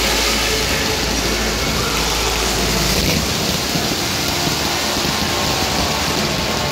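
Fireworks going off without a break: fountains of sparks and crackling effects make a dense, steady hissing crackle.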